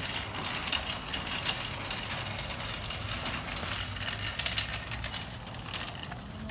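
Loaded wire shopping cart rolling across asphalt, its wheels and basket rattling steadily with many small clicks.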